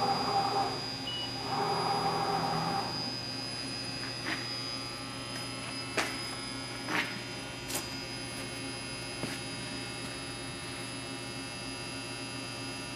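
Steady electrical hum from the powered-up Bridgeport CNC milling machine and its control. Two short mechanical whirring bursts come in the first three seconds, and a few light clicks follow later.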